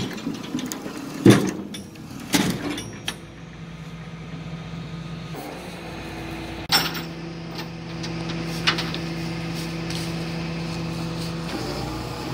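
A few sharp metal clanks, then a tilt-and-load flatbed tow truck running with a steady hum that grows louder about five and a half seconds in.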